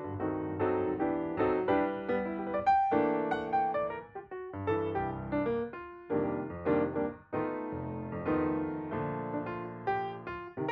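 Background piano music: a gentle melody of struck notes and chords.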